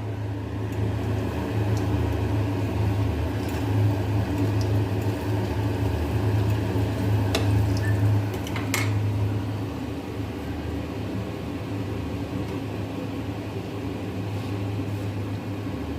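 Steady hum of a kitchen appliance's electric motor, with a few light clicks and knocks.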